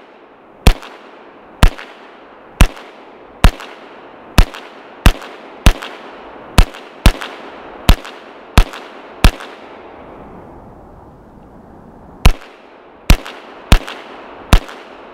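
B&T GHM9 9mm semi-automatic pistol firing about thirteen shots, roughly a second apart at first and quickening to about two a second. After a pause of about three seconds come four more shots. Each shot trails off in echo.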